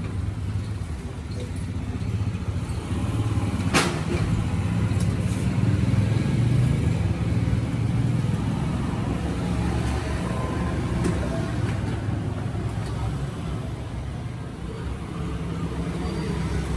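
Steady low rumble of road traffic, with one sharp click about four seconds in.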